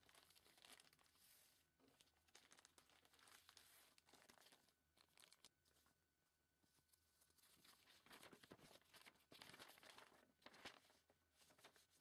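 Thin clear plastic bag and paper documents crinkling and rustling faintly in uneven bursts as they are handled and unfolded, busiest near the end.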